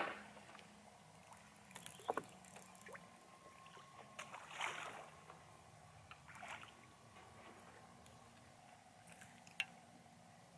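Quiet lake water lapping at a boat hull, with a few small splashes and a faint low hum, while a small largemouth bass is reeled up to the boat and lifted aboard; a single sharp click near the end.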